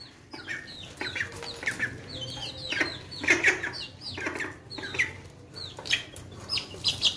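Young chickens clucking and peeping in short, high calls that drop in pitch, coming irregularly and often several close together.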